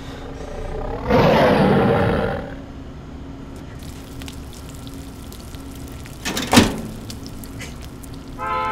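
A loud animal roar, like a big cat's, starts about a second in and lasts about a second and a half. A single sharp knock comes about two seconds before the end.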